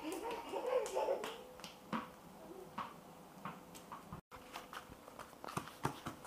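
A toddler's bare feet slapping and tapping on a tiled floor in short irregular steps. A brief child's vocal sound comes in the first second, over a faint steady hum.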